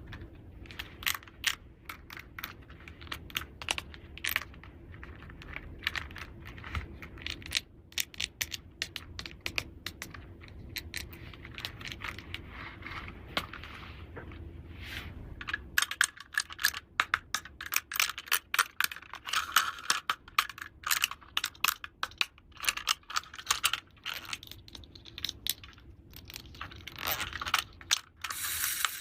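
Small plastic toy pieces being handled, light clicks and clacks as they are snapped together and set down, coming irregularly and growing busier and louder about halfway through.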